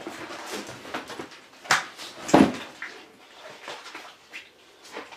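Handling noises as a bag is rummaged through: rustling and a string of short knocks and clicks, the loudest a dull thud about two and a half seconds in.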